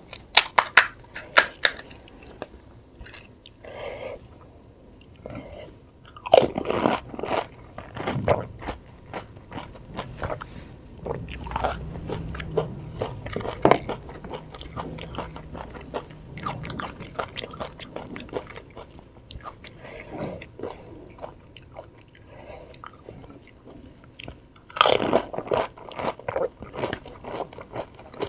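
Close-miked eating of crisp fried panipuri (golgappa) shells: sharp crackling crunches as a shell is bitten, then wet chewing. The crunching comes in bursts about a second in, around six to eight seconds in, and again near the end, with softer chewing between.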